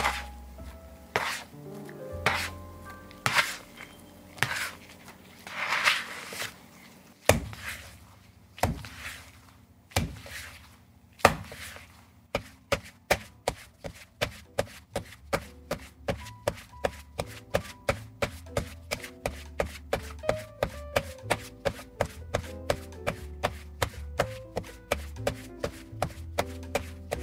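Bread dough being kneaded by hand on a wooden board, with each push and slap against the board giving a thump. The thumps come about once a second at first, then, with the footage sped up, run fast and even at about three a second, over background music.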